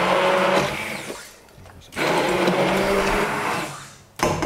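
Electric hand blender (immersion blender) running in two bursts of about a second and a half each, its whining motor and blade churning as it purées roasted root vegetables in the braising liquid, with the sound fading away after each burst. A sharp knock comes right at the end.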